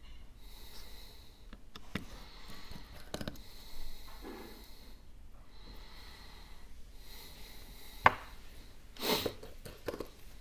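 Small clicks and taps of hand tools and small parts during an iPhone 12 teardown, with one sharp, loud click about eight seconds in. About a second later comes a short, noisy breath through the nose.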